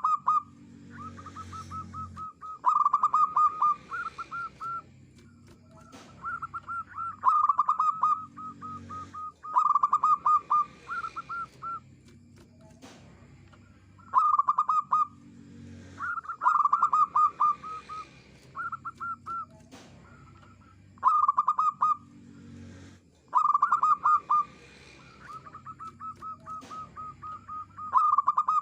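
Zebra dove cooing: phrases of rapid, rippling staccato notes at a steady pitch, repeated every few seconds.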